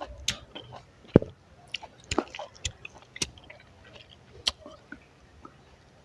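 Close-miked chewing and biting of food: wet mouth clicks and smacks, one every second or so, the sharpest about a second in.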